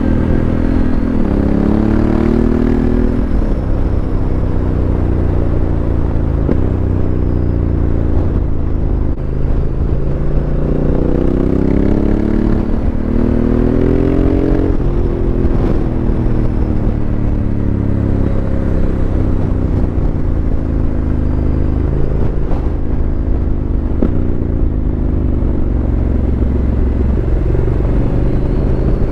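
Honda CRF1100L Africa Twin's parallel-twin engine running through an aftermarket Fuel exhaust while riding. Its pitch rises and falls several times as the revs climb and drop off, with wind noise on a helmet microphone.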